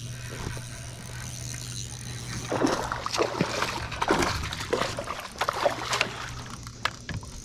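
Water splashing and trickling in irregular bursts, from about two and a half seconds in until about six and a half seconds in, close to the microphone.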